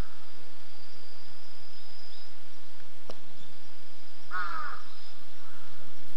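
A crow caws once, about four seconds in.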